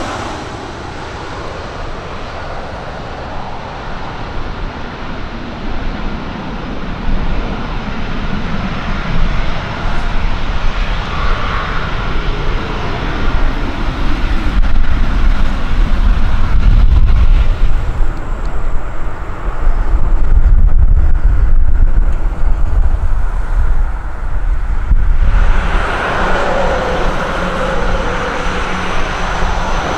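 Boeing 737 jet engines on final approach, then a loud, deep rumble from about the middle on as the jet lands and rolls out on the runway. About 26 s in it gives way to the steady drone of an ATR 42-600 turboprop's propellers on approach, with a slowly gliding tone.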